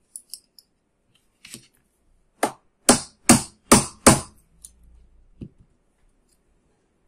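Sharp knocks struck on a thin screwdriver held against the end of a 775 DC motor's shaft, driving the rotor out of its housing. After a few light clicks, five knocks come about half a second apart, with a weaker one about a second later.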